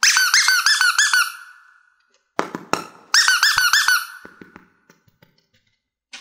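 Rubber squeeze toy elephant squeaking as it is pressed, in two quick runs of rising-and-falling squeaks about two seconds apart, with a short knock between them.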